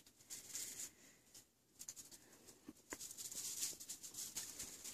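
Faint rustling with many small clicks and crackles, dropping to near silence for a moment about a second and a half in.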